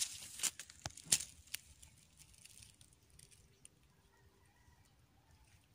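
Dry leaf litter and twigs crackling and snapping as the undergrowth is pushed through, a quick run of sharp crackles in the first second and a half, then only a few faint ticks.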